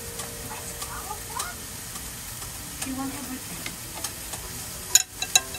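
Food sizzling steadily on a barbecue grill, with a couple of sharp clicks, like utensils on dishes, about five seconds in.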